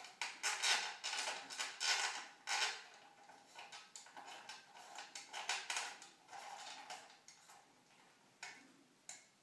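Small metal tool clicking and scraping against a chrome shower valve trim plate as a part is fitted, in irregular bursts that are busiest in the first three seconds and sparser after.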